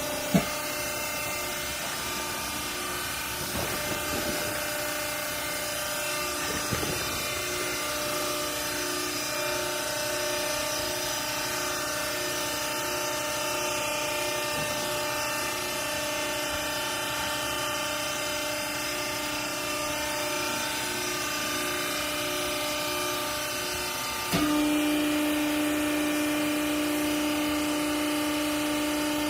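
Hydraulic baler's motor and pump running with a steady hum of several tones, with a sharp click at the start and a few light knocks. About 24 seconds in the sound steps up and turns louder, settling on a strong lower tone.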